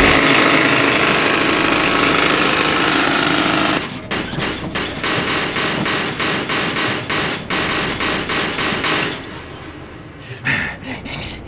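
Pneumatic rivet gun driving rivets into a pickup truck's metal body. A dense, continuous rattle for the first few seconds gives way to a string of separate sharp shots, about three a second, which turn quieter near the end.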